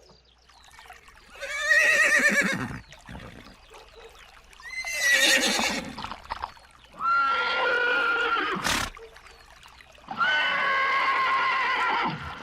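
Horses neighing: four long, quavering whinnies a few seconds apart, the last running on past the end. A sharp click comes partway through the third.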